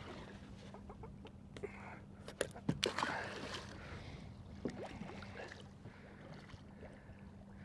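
Water lapping against a small fishing boat's hull under a faint steady low hum, with a brief cluster of sharp knocks and clatter about two and a half to three seconds in.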